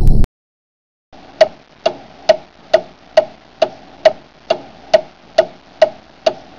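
A loud, noisy sound cuts off sharply at the very start. After about a second of silence, a clock ticks steadily, a little over two ticks a second.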